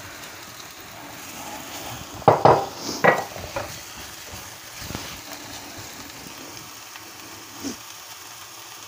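Chopped onion frying with a steady sizzle as crushed garlic and cumin go into the pan, with a few sharp knocks a little over two seconds in, then a spatula stirring.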